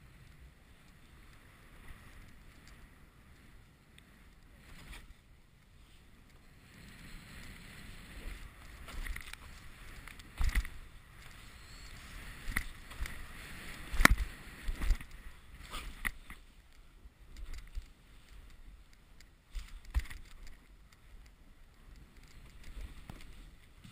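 Snowboard sliding and carving through powder snow: a steady swishing hiss that builds up about a third of the way in, broken by several sharp knocks and thuds from bumps, the loudest about halfway through.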